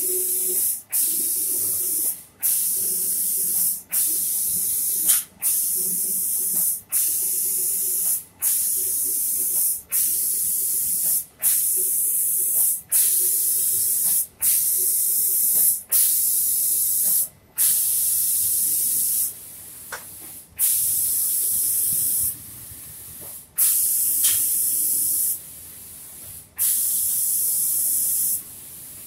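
Automatic painting machine's spray gun hissing as it sprays a finish coat of paint. The spray cuts off briefly about every one and a half seconds. In the second half the passes lengthen and the hiss drops out for a second or so at a time.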